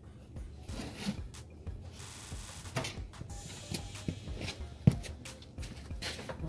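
Scattered knocks and clicks of objects being handled, with a brief scraping hiss about two seconds in and one sharp knock about five seconds in.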